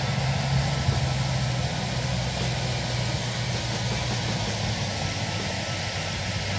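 Motorcycle engine running at a steady pitch, under a steady rushing noise.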